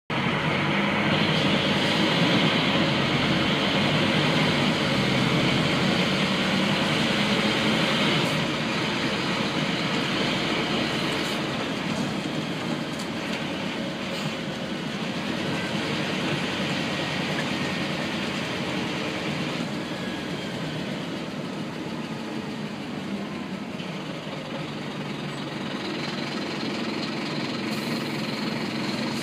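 Engine and running noise of a Scania N230UB single-decker bus heard inside the passenger cabin. It is louder for about the first eight seconds, then eases off and stays steady.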